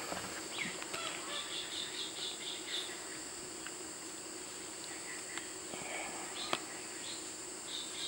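Natural ambience of a steady high insect drone with bird calls: a quick series of short notes, about four a second, between one and three seconds in, then scattered chirps. A single sharp click about six and a half seconds in.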